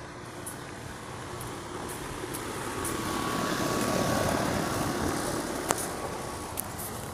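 Rushing noise of a passing vehicle, swelling to a peak about four seconds in and then fading, with a faint steady tone through the loudest part.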